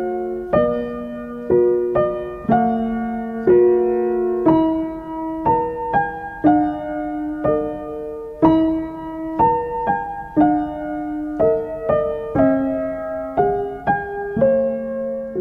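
Slow, gentle solo piano music, with notes and chords struck about once a second and left to ring out.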